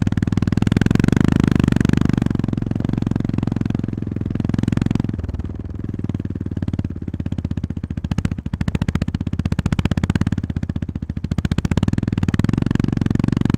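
Honda GB350S's air-cooled single-cylinder engine running under way, with a rapid even beat of exhaust pulses. The throttle eases off about five seconds in, dips again around eight seconds, and the engine pulls harder again near the end.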